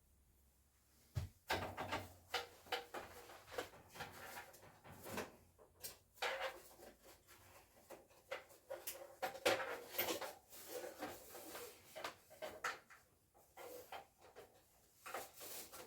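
Irregular plastic clicks, knocks and rustling of network cables being handled and fitted at a rack patch panel, starting about a second in.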